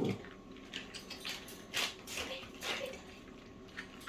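Dogs chewing treat chews: small wet clicks and smacks, with two louder breathy noises about two and three seconds in.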